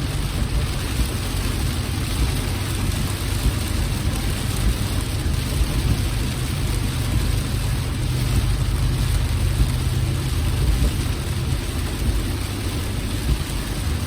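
Rain on a car while driving, a steady wash of noise over a constant low rumble from the moving car.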